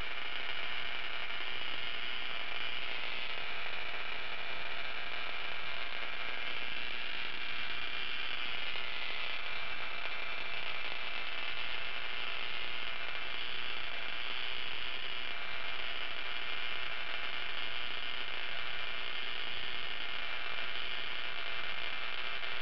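Small spark-gap Tesla coil, driven by a bug zapper transformer, running steadily: the spark gap firing and sparks arcing from the top load to a screwdriver, with an electrical hum under the sizzle.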